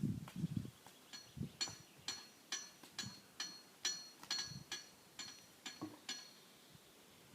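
Rhythmic ringing clinks, about two a second, as Highland cattle scratch their necks against something hard; each knock leaves a short high ring at the same pitch. A few dull thumps come at the start.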